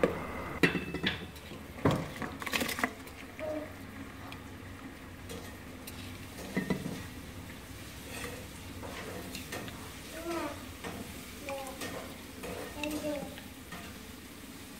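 Hand mixing coconut milk in a metal rice-cooker pot, with sharp knocks and clinks against the pot in the first few seconds, then quieter sounds as raw rice is tipped in from a bowl.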